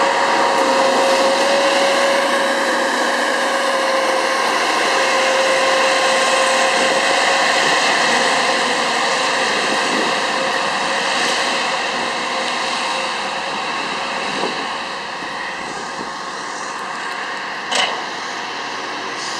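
Engines of railroad maintenance-of-way machines running as the machines roll past on the track, with a steady whine in the first half. The noise eases a little later on, and there is a single sharp click near the end.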